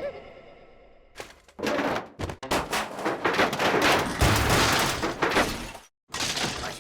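Cartoon slapstick sound effects: a fast, dense run of crashes, bangs and thuds starting about a second in, cutting off abruptly near the end, then a shorter burst.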